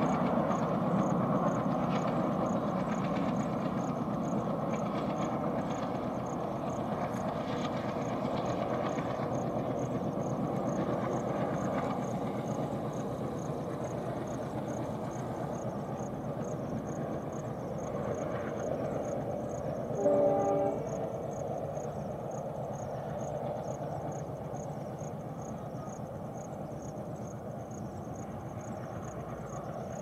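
Distant ALCO diesel locomotive and its passenger coaches running, a steady rumble that slowly fades as the train draws away, with one short horn blast about twenty seconds in.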